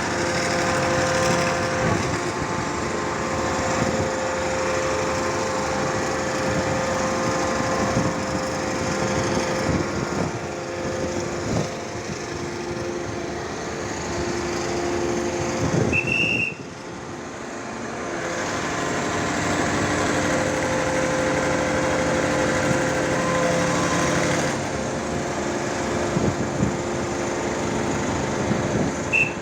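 Hydraulic static pile driver running steadily, its engine and hydraulic pumps giving a continuous whine with occasional knocks. About halfway through there is a short high beep, then the sound dips briefly and picks up again.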